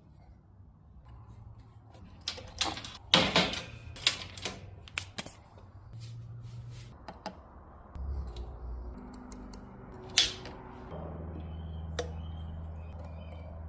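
Clicks and knocks of hand tools and metal parts as a Stihl chainsaw is worked on for clutch drum cleaning: a scattered series of sharp hits, the loudest about 3 and 10 seconds in, over a low steady hum.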